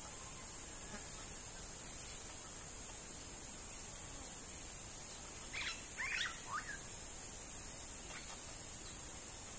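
A steady, high-pitched drone of insects, like a cricket or cicada chorus. A few quick falling bird notes come a little past the middle, with fainter ones near the end.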